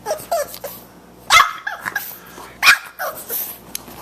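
Young Boxer puppy barking for attention: two loud, sharp barks about a second and a half apart, with shorter, softer calls before and between them.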